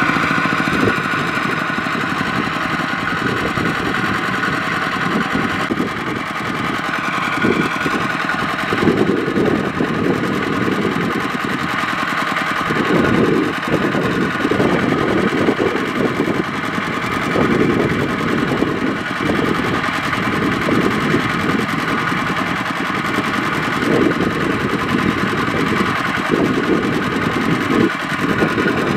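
Single-cylinder diesel engine of a two-wheel walking tractor running steadily with a rapid knocking beat. The tractor is bogged in deep paddy mud with a loaded rice trailer behind it.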